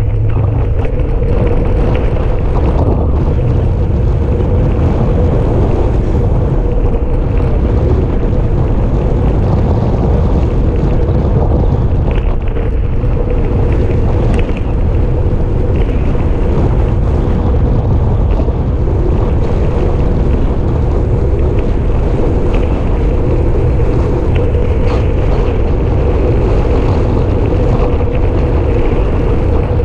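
Wind rushing over a handlebar-mounted action camera's microphone on a moving road bicycle: a loud, steady rumble with a constant hum running through it.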